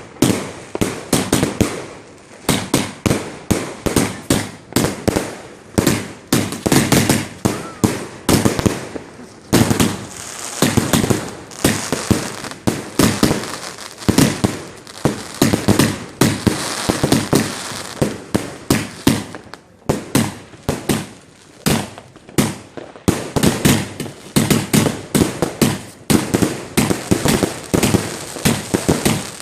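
Fireworks going off in a dense, continuous barrage: sharp bangs several times a second, with stretches of crackling between them.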